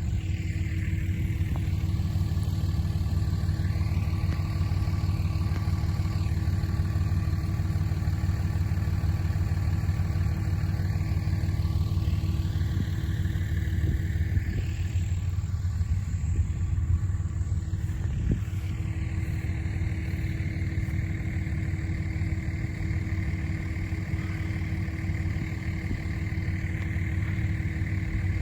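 A vehicle engine running steadily, a constant low hum.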